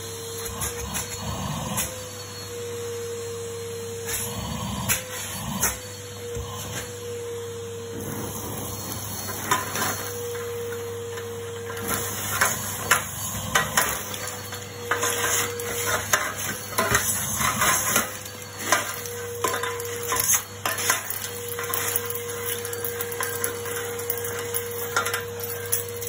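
Numatic Henry vacuum cleaner running with a steady whine, its metal wand sucking ash out of a metal ash tray. Debris rattles and clicks up the tube, and the wand knocks and scrapes on the tray. The clatter grows denser from about eight seconds in.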